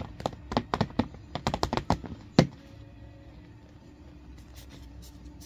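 Handling noise close to the microphone: a quick run of about a dozen clicks and taps over the first two seconds or so, the last one the loudest, then only a faint steady hum.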